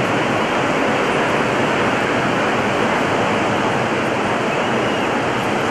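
Steady, even rushing noise of ocean surf breaking along the beach.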